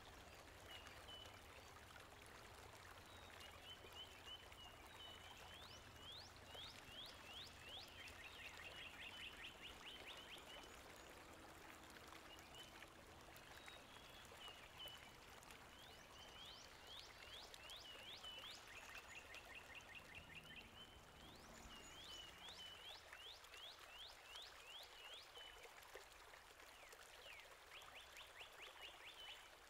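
Faint songbirds calling: repeated runs of quick rising chirps and rapid high trills, several times over, above a steady soft hiss.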